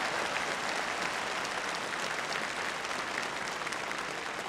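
Audience applauding after a song, the clapping slowly dying down.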